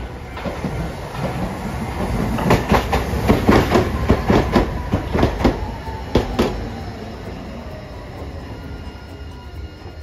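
A Hiroden 3900-series articulated tram runs past close by and slows, its wheels clacking rapidly over rail joints for a few seconds. Under the clacking, a whine falls in pitch as the tram slows, and the sound fades away near the end.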